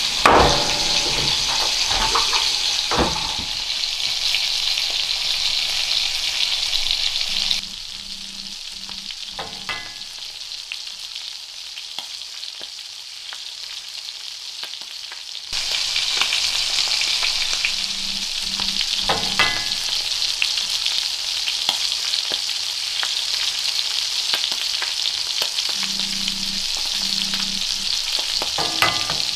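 Food sizzling in a hot pan, with occasional scrapes and clinks of a cooking utensil. The sizzle drops away for several seconds in the middle, then comes back as loud as before.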